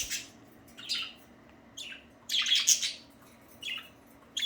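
Pet budgerigars chirping in about five short, high-pitched bursts, the longest and loudest a little past the middle.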